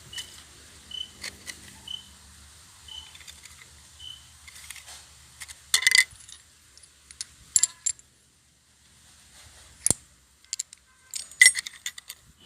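Hard metal objects clinking and knocking together: a handful of separate sharp metallic clinks with short ringing, spread irregularly, the loudest about halfway through and near the end.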